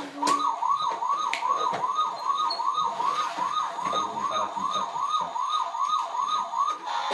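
Electronic siren of a battery-powered toy fire truck, a fast wailing yelp that sweeps up and down in pitch about three times a second.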